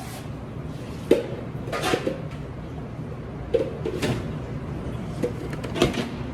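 Irregular sharp knocks and clatters of hard objects being handled, about seven in six seconds, over a steady low hum.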